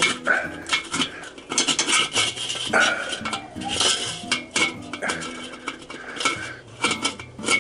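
Metal parts of a Weber kettle grill's one-touch cleaning system, the sheet-metal sweeper blades and control rod in the bottom of the bowl, clinking and scraping as they are taken out and turned around by hand. Irregular clinks and scrapes.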